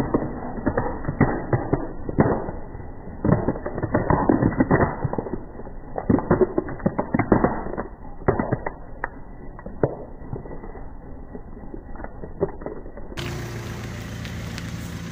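Hard plastic toy animals cracking and crunching under a car tyre as it rolls over them on asphalt: a long, irregular run of sharp snaps and cracks. Near the end, a car engine idling steadily.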